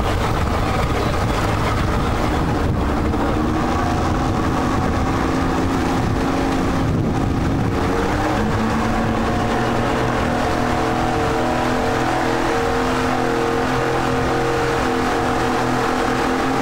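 Outboard engine of an RNLI rigid inflatable lifeboat running under way, its pitch rising from about halfway through as the boat speeds up.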